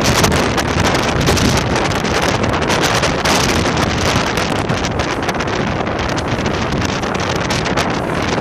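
Strong wind buffeting the microphone: a loud, steady rush with gusty flutter that covers everything else.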